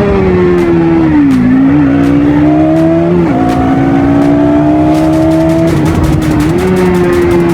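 Bajaj Pulsar NS200's single-cylinder engine through its stock exhaust, running with its note rising and falling. The pitch drops sharply about three seconds in, then climbs slowly.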